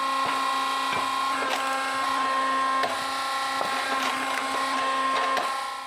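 Hydraulic wood splitter working: its motor and pump give a steady hum while the log splits with several sharp cracks of splintering wood. The hum cuts off suddenly near the end.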